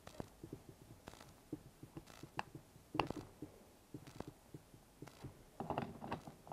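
Light clicks and taps of small RC buggy shock absorber parts being handled as a coil spring is fitted onto a shock body, with a sharper click about three seconds in. A quick cluster of taps near the end as the shocks are set down on a metal tray.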